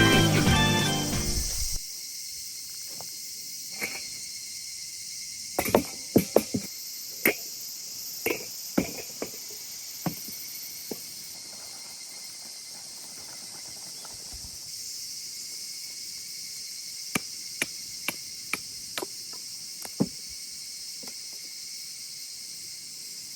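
A steady chorus of crickets and other insects, with a scattered series of light knocks and clicks, grouped in the middle of the stretch and again later.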